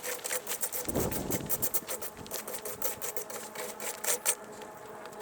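Crushed stone clicking and scraping in quick, uneven strokes as gravel is dug out and moved, with a faint steady hum beneath.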